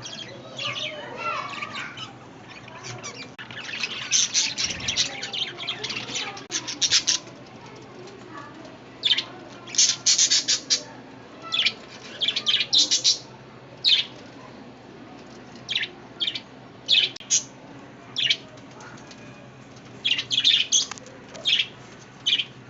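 Small pet parrots chirping and squawking in clusters of short, shrill calls separated by brief pauses.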